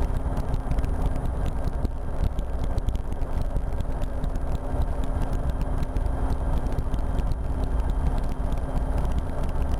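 RotorWay experimental helicopter in flight, heard from the cockpit: a steady drone of engine and rotor with a constant low hum and no change in pitch.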